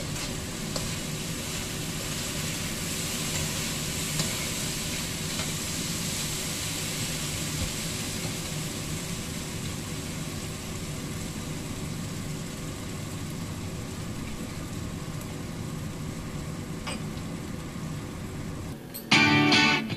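Minced pork sizzling as it stir-fries in a honeycomb-textured stainless steel pan, with an occasional scrape or tap of a slotted metal spatula over a steady low hum. Guitar music comes in near the end.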